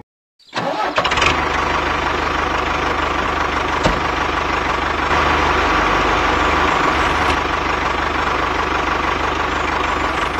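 Tractor engine sound effect: an engine starting about half a second in, then running steadily with an even low throb.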